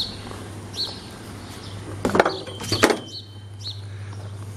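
Cardboard packaging and packing material handled during an unboxing: a few sharp knocks and rustles about two seconds in, with small birds chirping now and then.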